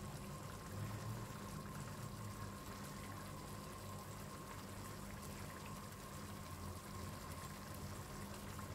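Coconut-milk curry stew simmering faintly in a frying pan on the stove, over a steady low hum.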